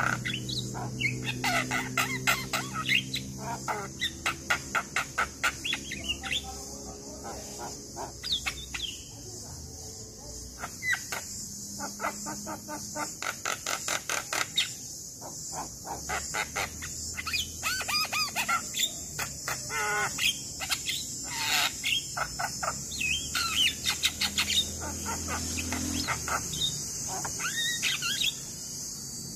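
Javan myna (jalak kebo) singing vigorously: bursts of fast, repeated chattering notes mixed with short whistled glides, with brief pauses between phrases, over a steady high hiss.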